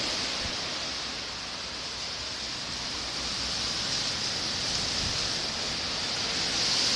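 Thunderstorm wind and rain: a steady rushing hiss that dips slightly a second or two in and swells near the end.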